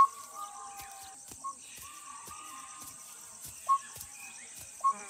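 Dholes (Asian wild dogs) whistling: four short, sharp whistles at irregular intervals, with fainter drawn-out whistles between them, over a steady high-pitched buzz. These are the pack's contact whistles, which help the dogs keep track of each other in dense jungle.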